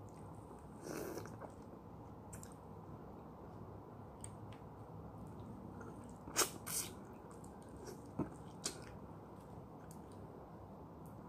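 A person biting, sucking and chewing on a juicy lemon piece: quiet chewing with a few short, sharp wet smacks, the loudest a pair about six and a half seconds in and two more near eight and a half seconds.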